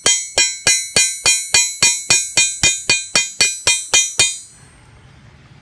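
Hammer blows on a steel rivet setter, setting a copper rivet through leather on a steel rail used as an anvil: an even run of about sixteen ringing metallic strikes, three or four a second, stopping about four seconds in.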